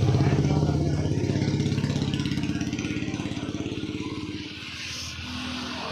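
A motor vehicle engine runs close by with a steady low throb. It is loudest near the start and dies away about four and a half seconds in.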